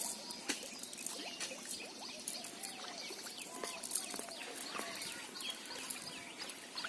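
Birds chirping and calling, many short notes, with scattered sharp light clicks and rustles between them.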